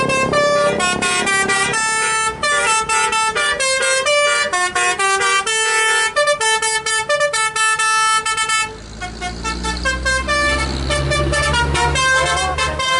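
Basuri multi-tone telolet bus air horn playing a quick tune of changing notes. About nine seconds in, the horn notes thin out under a low diesel engine rumble, then the tune starts again near the end.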